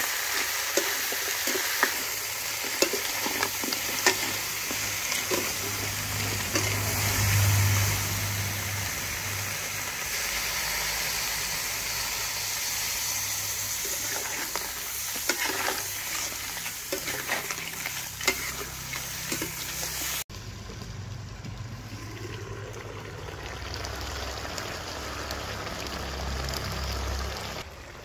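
Field crabs in spice paste sizzling in a wok while a metal spatula stirs them, clicking and scraping against the pan. About twenty seconds in, the clatter stops and a quieter sizzle goes on.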